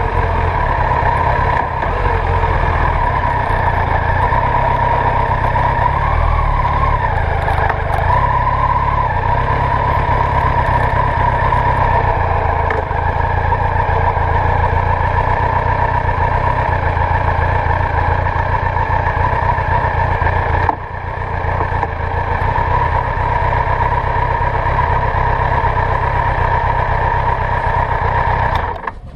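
Kawasaki ZZR1100's inline-four engine idling and running at walking pace, picked up through a handlebar-mounted camera: a steady high tone over a pulsing low rumble. The revs settle in the first couple of seconds, the sound dips briefly about three-quarters of the way through, and it cuts off at the end.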